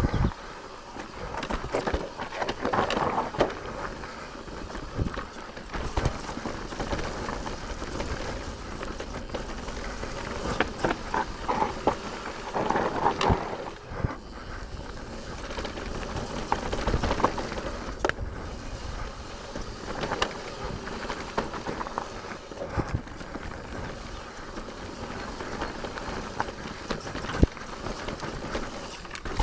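Santa Cruz Bullit electric mountain bike rolling down a dirt trail: steady tyre noise over dirt and leaves, with frequent clatters and knocks from the bike over bumps and roots.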